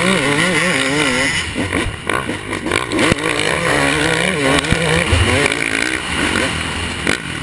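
Dirt bike engine racing on the rider's own bike, its revs rising and falling over and over as the throttle is worked, over wind and track noise.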